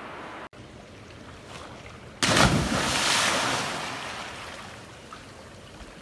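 A loud splash in river water about two seconds in, as a body enters the water, then the water churning and fading over the next few seconds.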